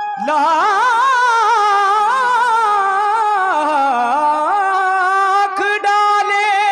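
Male qawwali singer's voice holding a long wordless melismatic run that glides up and down with a wavering vibrato, over a steady held accompanying note.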